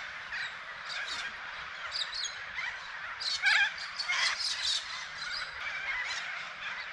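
Many birds calling and chirping at once in a morning chorus, with one louder call about three and a half seconds in.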